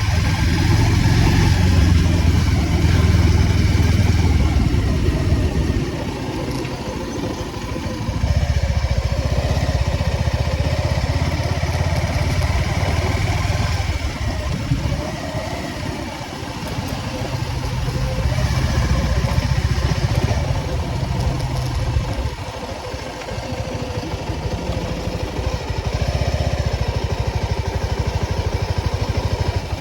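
Motorcycle engine running under way. It pulls harder for several seconds at a time and eases off in between, about four times over.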